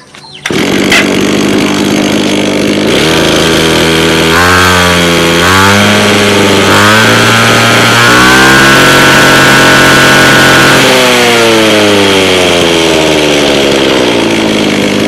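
Small two-stroke grass-cutter engine starting up loud and running. It is revved up unevenly, held at high revs for a few seconds, then eases back down toward idle.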